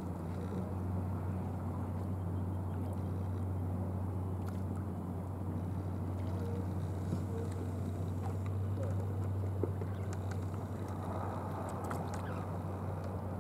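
Steady low engine hum, unbroken throughout, over a haze of outdoor noise, with a few faint ticks near the end.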